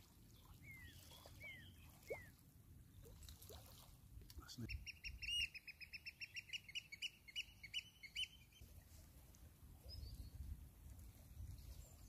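Birds calling on the shore. First come a few short downward-sliding calls, then a fast run of repeated high piping notes, about five a second, that lasts around four seconds. The calls are faint.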